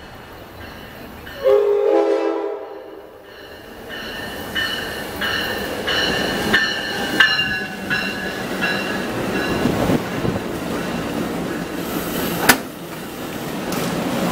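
Amtrak passenger train coming into the station: a short chord horn blast about a second and a half in, then the locomotive bell ringing in steady strokes as the train rolls past with wheel rumble, and one sharp wheel clack near the end.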